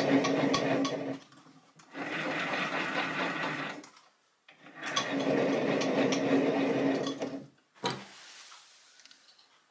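Gear train and leadscrew of a 7x16 mini metal lathe running as the spindle is turned by hand with a wooden crank for thread cutting in steel. The sound comes in three spells of two to three seconds with short pauses between, each with a steady hum. A single sharp click follows about eight seconds in.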